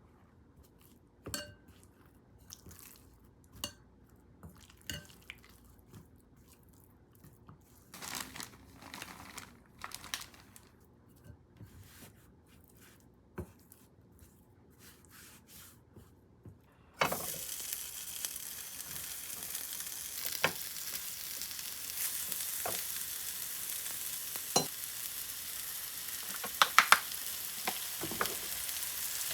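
Scattered light clicks and knocks of kitchen handling, then a little over halfway through food hits hot oil in a pan and sizzles steadily, with a few sharp clicks of stirring.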